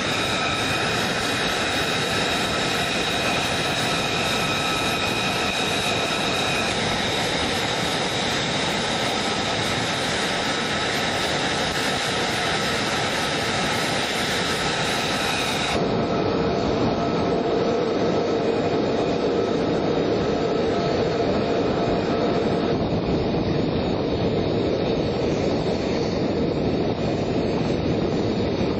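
Jet aircraft engines idling: a steady roar with high, steady whining tones. About sixteen seconds in it switches abruptly to a duller jet rumble with lower tones.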